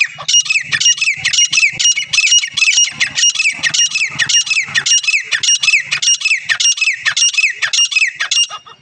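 Caged grey francolin calling, a fast, even series of loud, shrill repeated notes, about three a second, that stops near the end.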